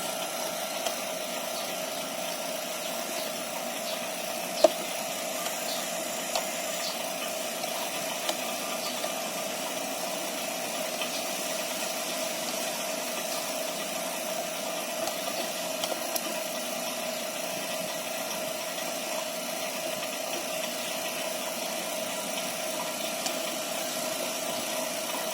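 Refrigeration vacuum pump running steadily, evacuating a split-type air conditioner's refrigerant lines before it is recharged. A single sharp click about four and a half seconds in.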